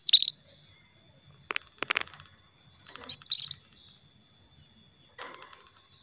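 Female canary giving short, high contact calls: two chirps about three seconds apart, each sliding down in pitch and followed by a softer note, with a few dry clicks between them.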